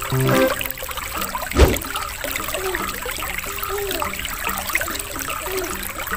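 Aquarium water bubbling and trickling from an air stone's stream of bubbles. There is one thump about a second and a half in.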